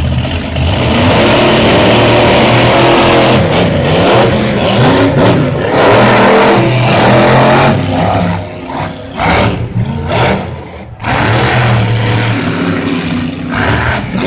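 Monster truck engines revving hard as the trucks launch and race down a drag strip. The loud engine note rises and falls, eases near eight seconds in, then surges again.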